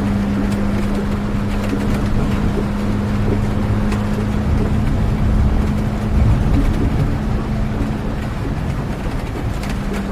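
Steady rain with a low rumble and a constant low hum, as heard from inside a moving vehicle. The hum drops out for a moment near the end.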